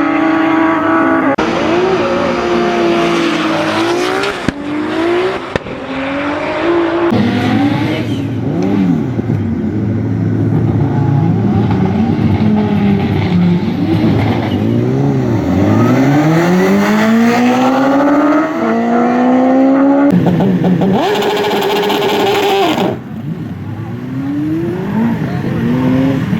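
Drag-racing engines revving hard, their pitch climbing and falling again and again, at times two engines heard together. The sound changes abruptly several times, as at cuts between runs.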